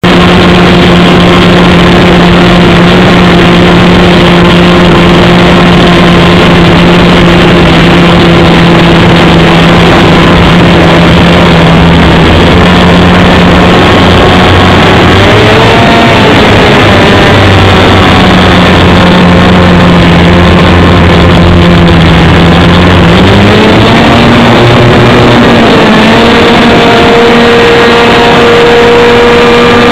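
Light aircraft's engine running very loud close to the microphone. Its note holds steady at first, wavers up and down around the middle, then climbs to a higher steady speed about three-quarters of the way through as the throttle is opened.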